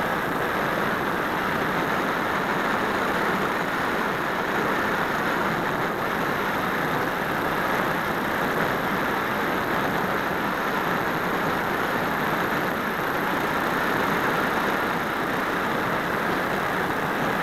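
Steady rush of airflow over a small wing-mounted camera on a Phoenix 1600 RC glider in flight, an even noise with no changes or sudden sounds.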